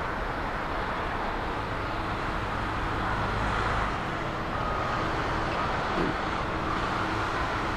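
Jet airliner engine noise, a steady rush with no clear breaks.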